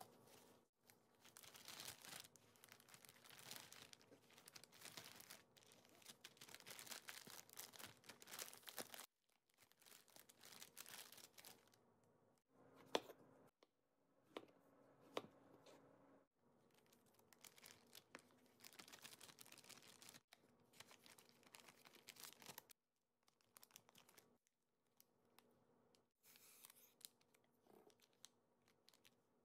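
Faint rustling and crinkling of paper towel and a plastic zip-top bag being handled, with two sharp clicks in the middle.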